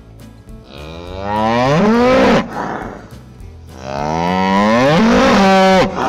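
Cattle mooing: two long, loud calls of about two seconds each, each rising in pitch, with faint background music underneath.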